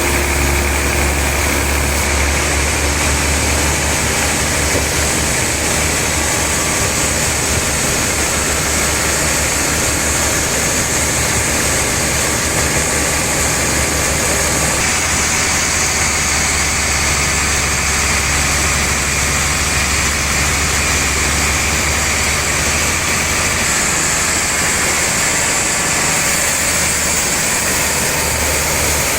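Sawmill saw and its motor running steadily and loudly through trembesi (rain tree) wood, with a deep hum under a continuous hiss.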